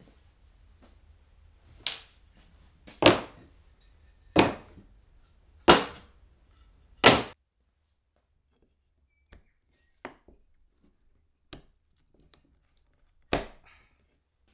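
A series of sharp knocks on wood: five loud ones about 1.3 s apart, then after a pause several fainter, irregular ones.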